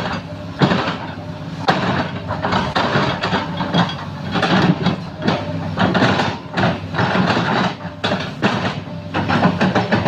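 Heavy diesel machinery running steadily, with many irregular clanks and knocks throughout.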